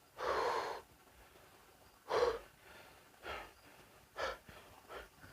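A man's heavy breathing close to the microphone: one long breath near the start, then short, sharp breaths about once a second.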